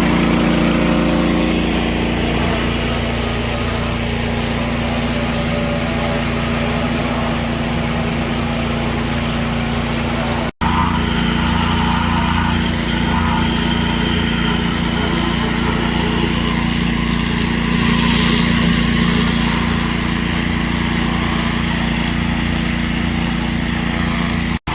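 Hot-water pressure washer's small engine running steadily. The sound breaks off for an instant about ten seconds in.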